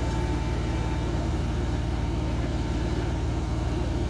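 Diesel engine of a Cat hydraulic excavator running steadily, a low, even engine sound.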